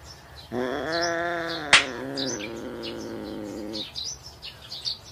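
A long, wavering animal cry lasting about three seconds, with one sharp click partway through. Faint bird chirps run underneath.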